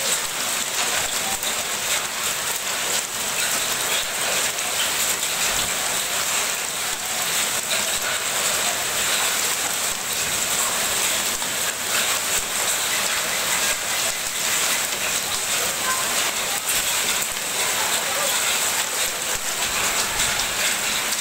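Hailstorm: heavy rain and hail falling on the street and roofs, a dense steady hiss with many small hits.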